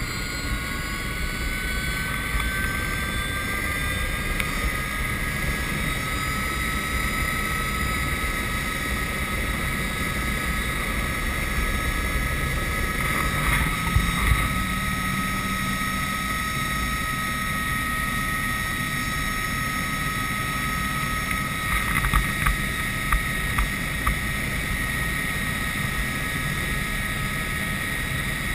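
Helicopter turbine engine and rotor running, heard inside the cabin: a steady rumble with a high whine that rises in pitch over the first few seconds and then holds steady. A few short knocks sound near the middle and again later.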